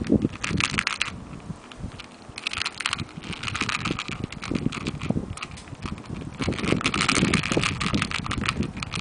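Persian kittens scrabbling on a bedsheet: rustling fabric and dense light scratching and clicking from paws and claws, coming in bursts that are busiest about a second in, around three seconds in and through the last couple of seconds.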